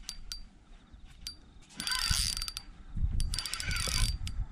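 Fishing reel clicking as it is cranked to wind in a hooked fish, in two spells of rapid ratcheting: a short one about two seconds in and a longer one about three seconds in.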